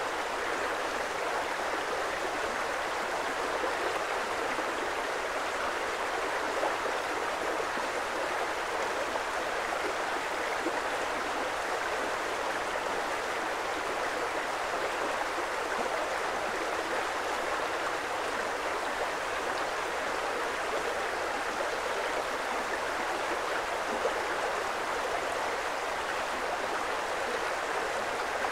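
Creek water flowing in a steady, unbroken rush.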